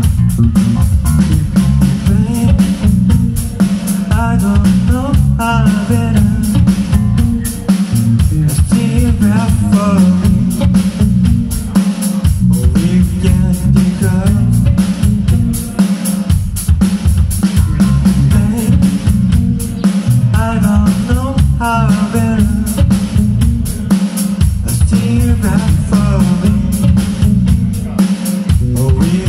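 Live rock band playing: electric guitar, bass guitar and drum kit, with a lead vocal that comes in and out. Heard from the audience, the mix is loud and bass-heavy.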